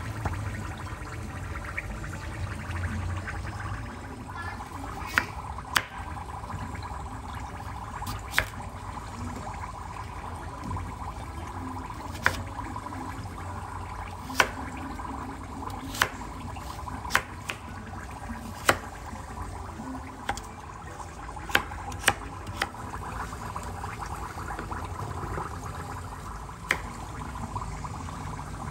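Water running steadily, with about a dozen sharp clicks and knocks at irregular intervals.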